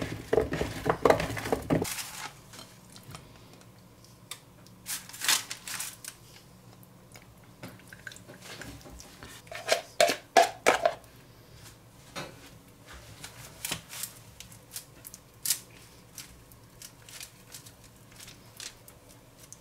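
Hands tossing pumpkin chunks and feta in a plastic bowl, a busy rustle and clatter for the first two seconds. After that, scattered light taps and clicks of a spoon against a plastic bowl as feta-and-egg batter is stirred and spread onto raw cod fillets.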